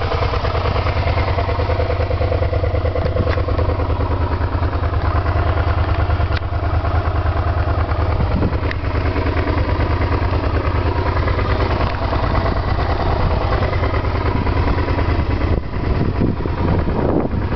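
Motor scooter's small engine running steadily while riding, a continuous low hum.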